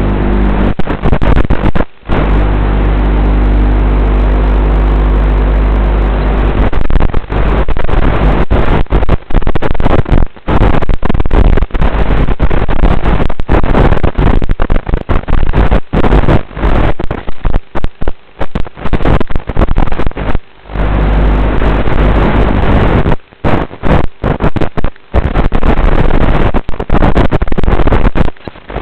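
Loud rushing wind-and-water noise picked up by the onboard FPV camera of an RC sailboat under way, broken by frequent brief dropouts. A steady low hum runs under it for the first six seconds and again about twenty seconds in.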